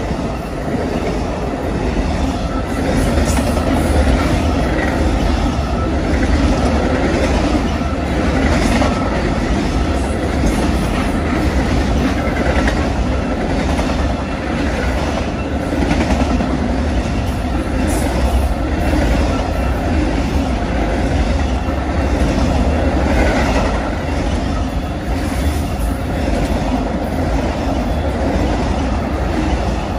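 Amtrak Auto Train passenger cars and then its enclosed car-carrier wagons rolling past close by. A steady, loud rumble of steel wheels on rail, with repeated clickety-clack as the wheelsets cross rail joints.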